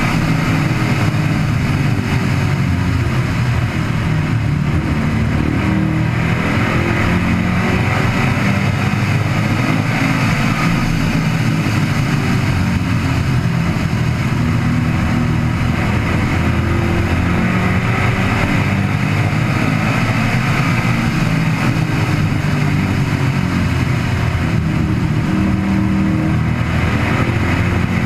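Super Stock race car's V8 engine running hard at speed, heard from on board, its note dropping as the car lifts into the turns and climbing again under acceleration down the straights, with a steady rush of wind and road noise.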